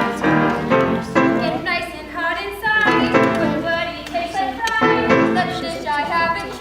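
Music: a song sung by young voices with instrumental accompaniment.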